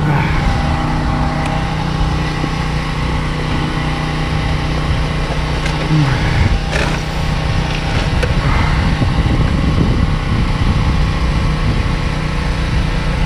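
A motor running steadily, a continuous low hum with a brief rise in pitch about six seconds in, and a few light knocks in the middle.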